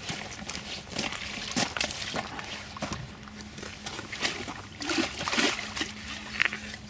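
Lake water sloshing and splashing as a carp sling holding a big common carp is carried to the bank and lowered into the shallows, with irregular rustles and handling noises from the sling.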